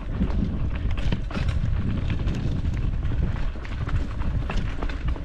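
A hybrid bicycle with no suspension rattling and knocking as it rides down a rough trail, many small clattering impacts over a constant low rumble.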